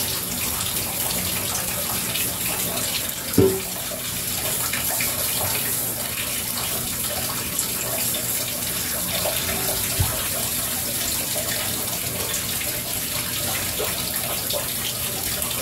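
Handheld shower sprayer running water onto a large dog's soaked coat in a bathtub, a steady hiss of spray. A single sharp knock stands out about three and a half seconds in, with a smaller click near ten seconds.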